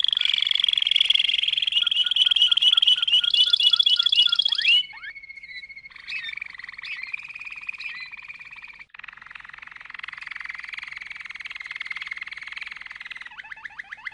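Domestic canary singing: long fast trills and rolls with sliding whistled notes. The song drops much quieter about five seconds in and ends on another rapid trill.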